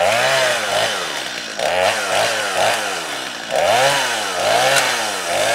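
Two-stroke chainsaw running, its engine pitch rising and falling about six times as the throttle is worked or the chain bites and frees in the cut.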